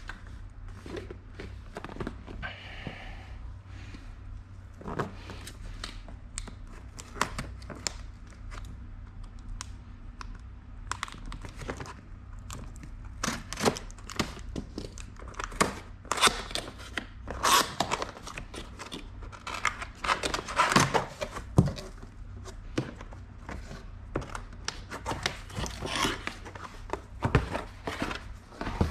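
Product packaging being unboxed by hand: tearing and crinkling of wrapping and packing material with scattered clicks and rustles, busiest in the second half, over a steady low hum.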